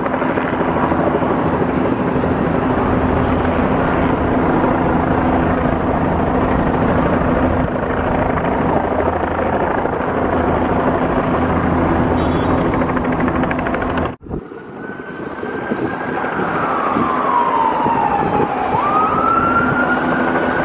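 A loud, steady mechanical rumble with a constant low hum, then, after an abrupt cut, an emergency vehicle siren wailing: its pitch slides slowly down, then sweeps quickly back up and holds near the end.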